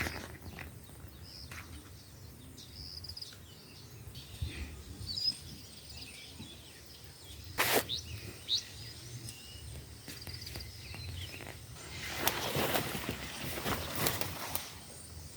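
Outdoor farm ambience with scattered small bird chirps, a single sharp knock about halfway through, and a few seconds of rustling, scraping noise near the end.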